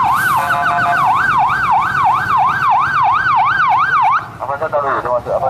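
A bus's custom 'telolet' musical horn playing a siren-like wail that rises and falls about three times a second, with a steady horn chord briefly layered on top about half a second in. A little after four seconds in, the wail breaks off into a quick run of short notes.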